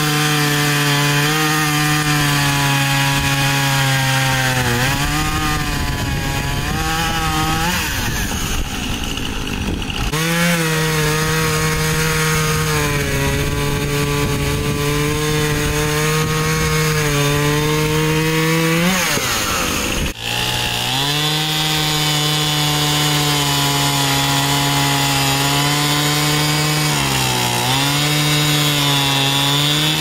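Two-stroke gas chainsaw running at high revs, cutting through a fallen tree trunk. The engine note sags and recovers as the chain bites into the wood. The sound breaks off abruptly about two-thirds of the way through and picks up again at full revs.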